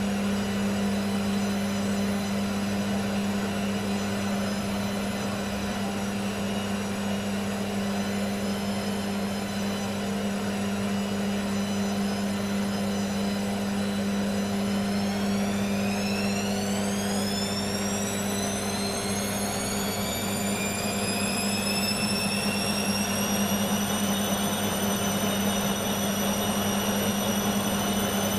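Beko washing machine running with a balanced load: a steady motor hum and whine, then from about halfway through the whine rises in pitch as the drum speeds up into a spin, levelling off near the end.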